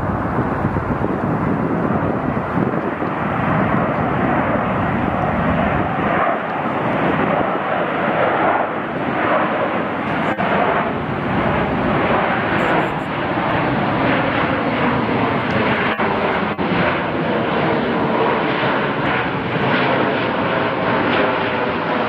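Boeing 727-200 freighter's three Pratt & Whitney JT8D low-bypass turbofans at takeoff power as the jet climbs out overhead: a loud, steady jet noise that takes on a wavering, sweeping tone in the second half as the aircraft passes over.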